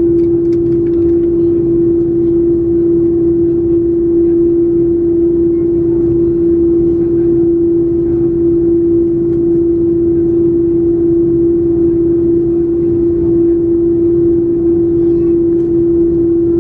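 Inside the cabin of an Airbus A330-300 on the ground, its General Electric CF6-80E1 engines idling: a steady drone with one held hum over a low rumble.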